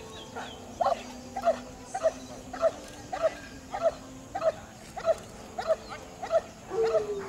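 A dog barking over and over at a steady pace, about one and a half short barks a second.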